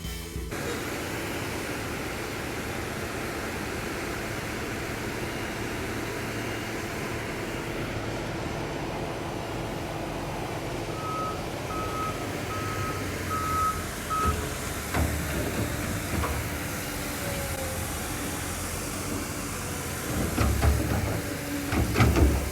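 Heavy construction equipment running steadily, with a reversing alarm beeping about five times midway. Clanks and heavy low thumps follow toward the end.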